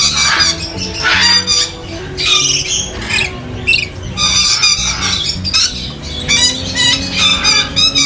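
Parrots squawking in short, repeated calls over background music with a steady bass line.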